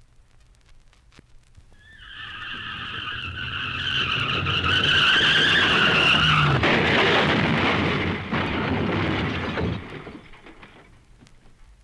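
Car tyres screeching for about four seconds, then a crash: a dense noisy crunch that fades out about three seconds later.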